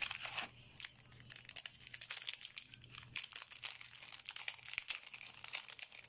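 Foil wrapper of a Yu-Gi-Oh booster pack crinkling and tearing as it is opened by hand: a dense run of crackles that thins out near the end.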